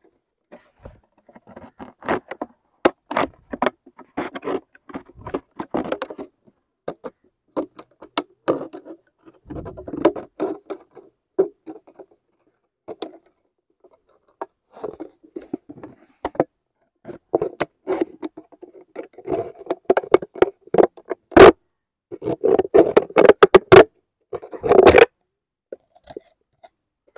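Plastic drink bottle being cut by hand, the thin plastic crinkling and scraping in irregular bursts with sharp snaps, busiest and loudest near the end. The bottle is tough to cut through.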